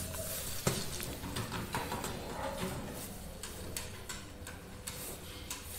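Quiet room tone: a steady low hum with faint, irregular light ticks and taps scattered through it.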